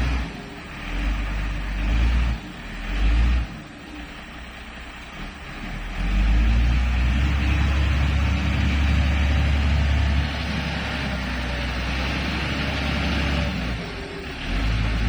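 Motor grader's diesel engine running hard under load, its rumble swelling and easing, loudest from about six to ten seconds in.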